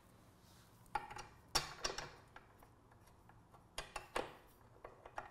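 Small metal hardware (bolt, washer and nut) clicking and clinking as it is handled and fitted by hand, about five separate sharp clicks spread unevenly over the seconds.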